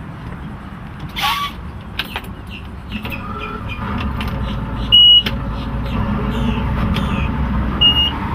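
Twin Evinrude 225 HP Ram Injection two-stroke V6 outboards starting up, their low rumble building about three seconds in and settling into a steady idle. A short, loud, high beep sounds about halfway through, and a shorter one near the end.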